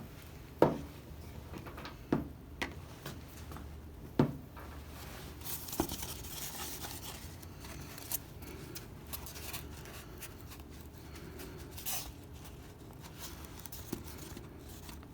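Hands handling a foam model airplane and tools on a workbench. A few sharp knocks and taps in the first four seconds or so, then rustling and scraping with scattered clicks.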